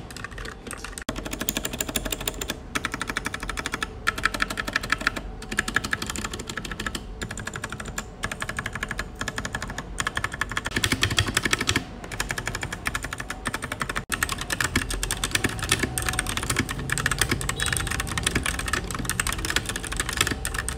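Milyy Pudding MK25 mechanical keyboard being typed on fast and continuously, a dense run of key clicks and clacks with a few short pauses.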